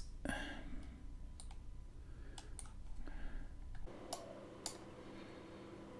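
Scattered, separate clicks of a computer mouse while the terminal output is scrolled through, over a quiet room. A faint steady hum comes in about four seconds in.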